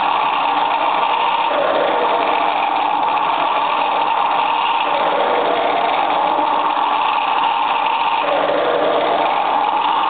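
A loud, steady droning noise with no speech, its tone wavering every few seconds.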